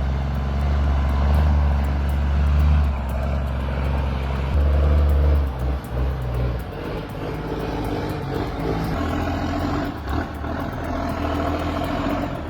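Loaded logging truck's engine pulling steadily up a steep dirt climb, a deep drone that dips briefly about halfway through and then picks up again.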